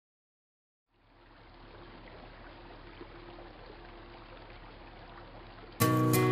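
Swimming-pool water lapping and sloshing, fading in about a second in as a soft, steady wash. Near the end, guitar music starts abruptly and takes over.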